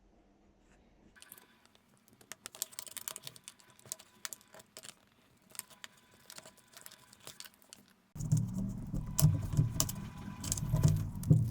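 Metal tokens and keys jingling and clicking on a keychain. About eight seconds in it cuts abruptly to a louder low rumble, with the jingling continuing over it.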